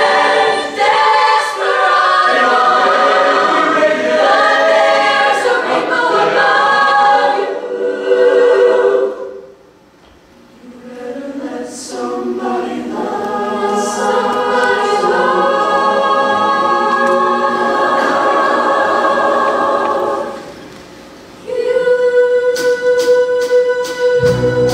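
Mixed-voice show choir singing, breaking off briefly about nine seconds in. Near the end the singing stops again and a backing track comes in with a regular ticking beat, a held note and a bass line.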